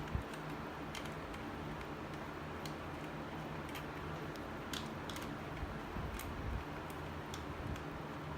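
Scattered light metallic clicks from hand tools as bolts are snugged up one by one, about one a second, over a steady low hum.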